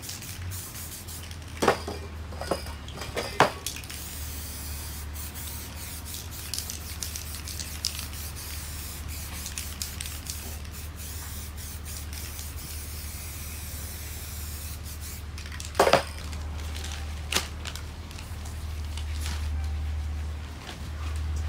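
Aerosol spray paint cans hissing as paint is sprayed in long passes onto poster board, with a few sharp clicks or knocks in between.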